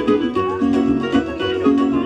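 Live acoustic band playing an instrumental break: plucked string instruments pick a quick run of notes over low bass notes.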